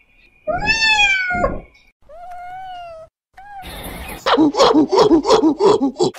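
A domestic cat meowing: one long, loud meow, then a softer second one. In the last two seconds a primate gives a fast series of rhythmic hooting calls, about four a second.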